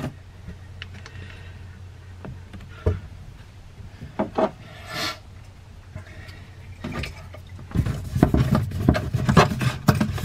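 Handling noise from plumbing parts: scattered clicks and rubbing as a chrome SharkBite push-fit valve and PEX pipe are handled, with a brief rustle about five seconds in. The handling gets busier and louder in the last two seconds, over a low steady hum.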